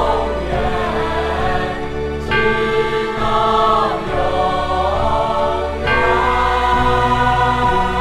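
Song with choral singing over sustained instrumental chords, the chords changing about two seconds in and again about six seconds in.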